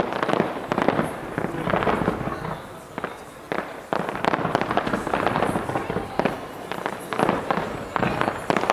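Fireworks going off in a dense, continuous barrage of bangs and crackling pops.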